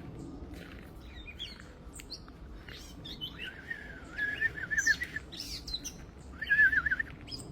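Several birds chirping and calling in a tree, short high chirps throughout, with two louder warbling phrases, one from about three to five seconds in and a shorter one near the end.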